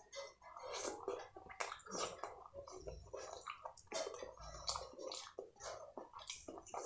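Close-miked wet chewing and lip-smacking of a mouthful of fried rice and saucy chilli paneer, with many short sticky clicks of the mouth throughout.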